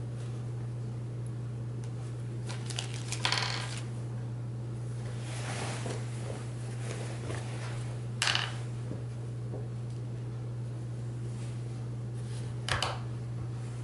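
Small metal pieces clinking: three brief clinks about five seconds apart, with a softer rustle between the first two, over a steady low hum.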